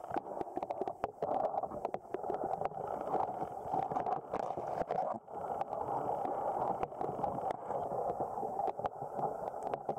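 Muffled underwater noise picked up through an underwater camera: a steady water hiss with many small clicks and crackles scattered through it.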